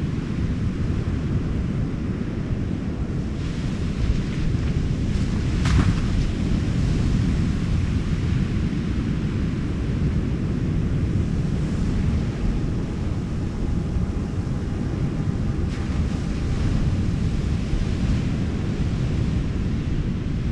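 Wind buffeting the microphone over steady ocean surf, with one sharp click about six seconds in.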